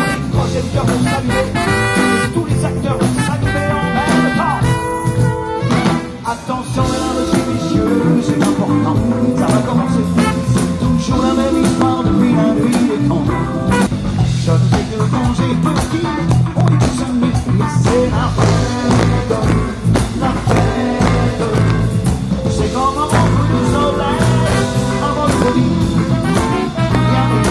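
Live pop band playing an upbeat song, with a male lead singer's voice coming in at times over the band.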